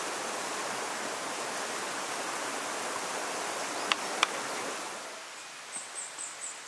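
Steady rush of flowing stream water, with two sharp clicks about four seconds in. The rush drops away about five seconds in, and a quick run of about five short high chirps follows near the end.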